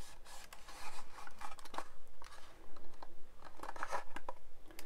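Hands handling and squeezing a 1/24 scale Airfix Hellcat plastic model fuselage: plastic rubbing and scraping against the fingers, with a few light clicks.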